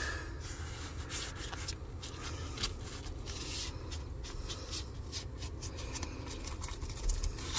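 Gloved hand rubbing and pressing a foam speaker baffle into place against the underside of a car's package tray: irregular rustling and scraping with small clicks.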